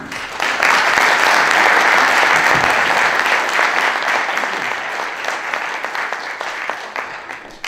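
Audience applauding: many hands clapping, swelling over the first second, holding steady, then tapering off near the end.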